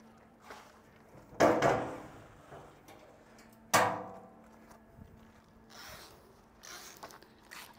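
Hinged door of an aluminium checker-plate gas box banging twice against its frame, about a second and a half in and again near four seconds, each bang ringing briefly as it fades.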